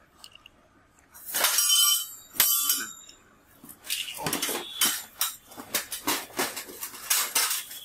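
Clothes-rack parts being handled: a metallic clatter with a brief ring and a sharp click, then a run of quick scraping and rustling as the cardboard box is dragged and handled on the floor.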